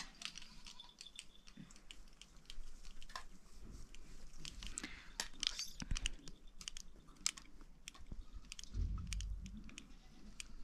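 Eating sounds: irregular small clicks and smacks of chewing, with a brief low rumble about nine seconds in.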